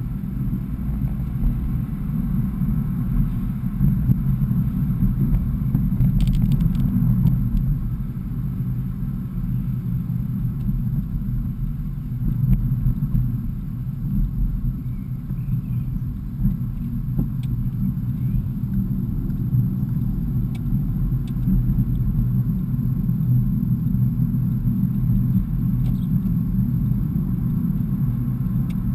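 Engine and road noise of a BMW E46 heard from inside the cabin while driving at town speed: a steady low rumble.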